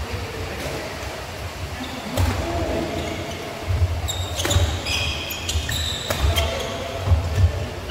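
Badminton play on an indoor court: several sharp racket strikes on the shuttlecock, with footfalls thudding on the court floor and short high shoe squeaks in the middle.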